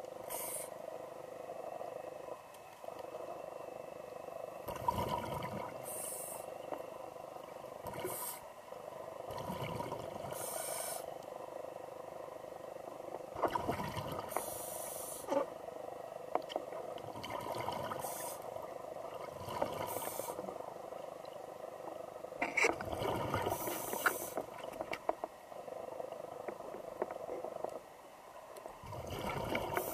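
Scuba diver breathing through a regulator underwater: hissing inhalations alternate with rumbling, bubbling exhalations every few seconds, over a steady hum.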